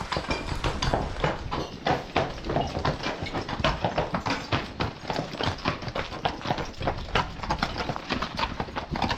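Hooves of a team of Percheron draft horses walking, a busy irregular run of hoof strikes several a second.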